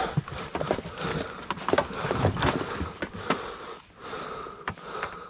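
Gear being packed into a kayak: irregular rustling, clicks and knocks from items being handled and pushed into place.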